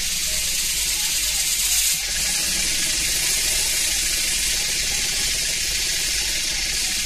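Compressed air hissing steadily from an air blow gun into a Stuart S50 model mill engine, which runs on the air with a faint mechanical rattle; the hiss dips briefly about two seconds in.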